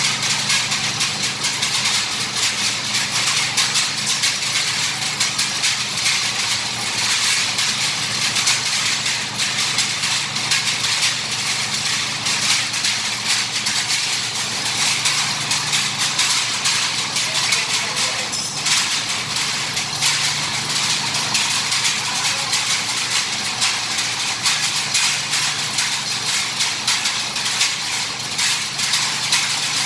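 Steady machine noise: a continuous low hum under a loud, even hiss, like a motor or engine running.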